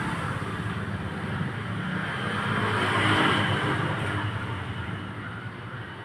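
Road traffic noise: a steady low engine hum, with a passing vehicle that swells to a peak about three seconds in and then fades.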